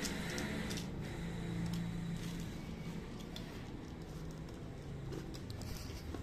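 A utility knife blade picking and scraping at a taped paper-wrapped package, small scattered clicks and crinkles of the wrapping, over a steady low hum.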